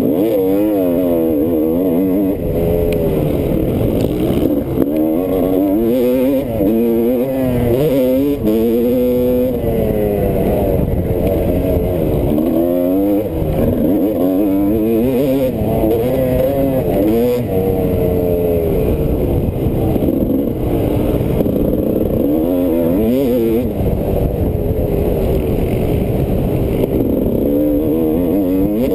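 Motocross bike engine under race throttle, heard from a camera mounted on the bike: its pitch climbs and drops back again and again as the rider accelerates through the gears and rolls off for corners and jumps.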